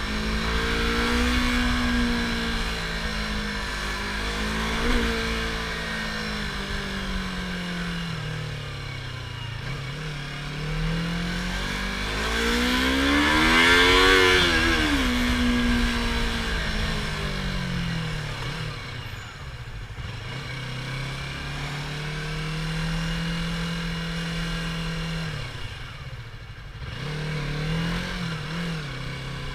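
Yamaha R25's 250 cc parallel-twin engine with the stock exhaust, its pitch rising and falling as the throttle is opened and closed, climbing to its highest about halfway through and easing back to a steady lower pitch, with a few short blips of throttle near the end.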